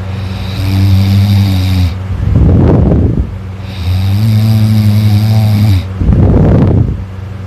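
A person snoring loudly in a steady breathing rhythm: two long droning snores, each followed by a short rushing breath.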